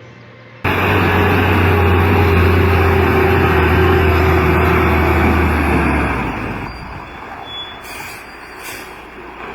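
Engine of a heavily overloaded truck running hard, a loud steady drone that starts suddenly about half a second in and fades to a quieter rumble about six seconds in.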